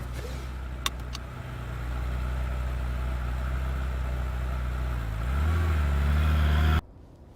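Car engine running steadily, with two short clicks about a second in; a little after five seconds it revs up as the car pulls away, louder and higher, then cuts off abruptly.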